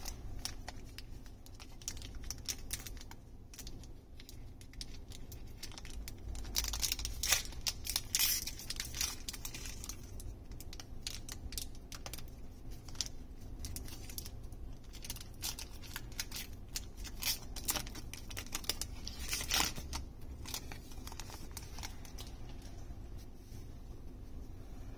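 Foil wrapper of a Magic: The Gathering booster pack crinkling in the hands and being torn open, with louder bursts of crinkling and tearing a few seconds in and again near the end.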